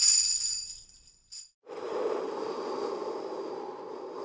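Tambourine jingles ringing and fading away, then a short second shake of the jingles about a second later. After that comes a steady, muffled rushing sound.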